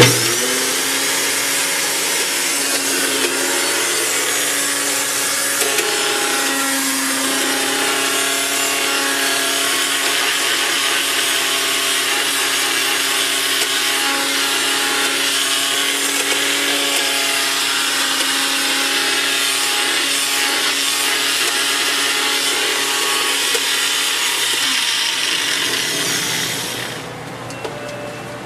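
NutriBullet blender motor running at full speed, its blade grinding ingredients into a paste; a steady whir with a low hum that starts abruptly and stops about a second before the end.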